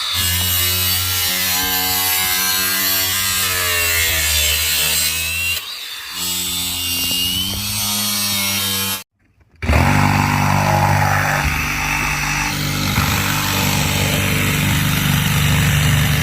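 Motorised power saw running and cutting, its pitch sagging under load. It cuts out briefly about six seconds in, drops out fully about nine seconds in, then runs again until it stops abruptly at the end.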